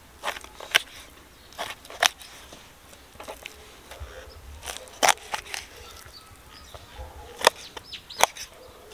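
Chef's knife chopping raw fish fillet on a plastic cutting board: a series of sharp, irregular knocks as the blade cuts through and strikes the board.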